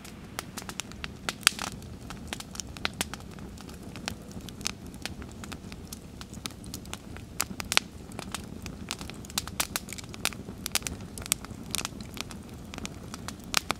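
Wood campfire crackling: irregular sharp pops and snaps, several a second, over the steady low noise of the burning fire.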